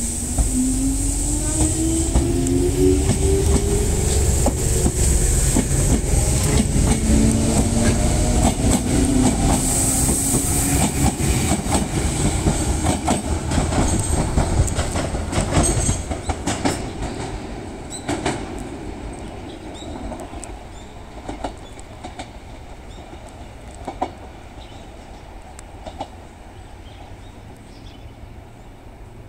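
Enshu Railway 1000-series electric train (sets 1002 and 1007 coupled) pulling away from a station. Its motor whine rises in pitch as it accelerates and the wheels clack over rail joints, then the sound fades steadily as the train draws away.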